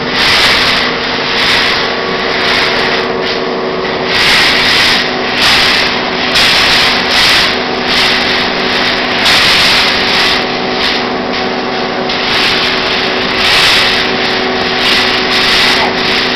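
Automatic wire mesh welding machine running: a steady hum under repeated surges of hissing, crackling noise, about one a second.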